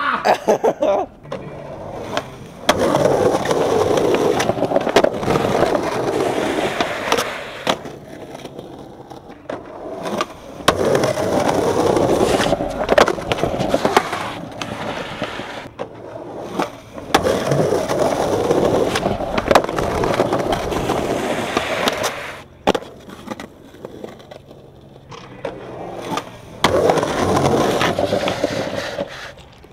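Skateboard wheels rolling on concrete in four separate runs, each a long stretch of rolling noise with sharp clacks of the board striking the ground, and quieter pauses between runs.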